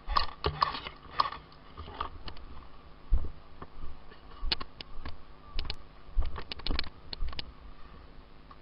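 Airsoft guns firing in scattered sharp clicks, some in quick runs of two or three shots, with a few low thuds in between.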